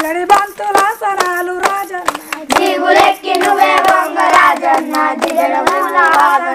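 A woman and children singing a Telugu jajiri folk song while clapping hands together in a steady, even rhythm. A single voice carries the song at first, and a group of voices comes in about two and a half seconds in.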